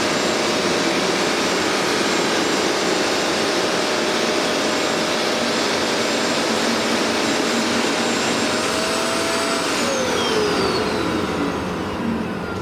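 Hoover MaxExtract carpet cleaner's suction motor running with a steady whine and rushing air. About nine seconds in, the whine rises slightly, then falls steadily in pitch as the motor spins down after being switched off.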